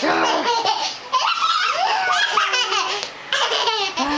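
A toddler laughing, in three bouts with short pauses between.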